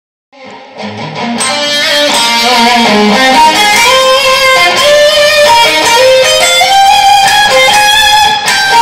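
Electric guitar music with quick melodic lines, fading in from silence just after the start and reaching full level by about two seconds in.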